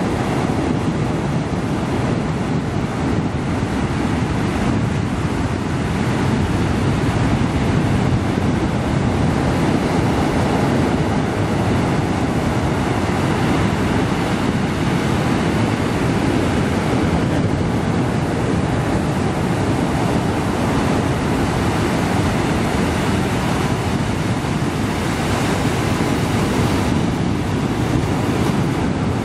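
Ocean surf breaking against a rocky shore: a continuous deep rumble and wash of waves that never lets up.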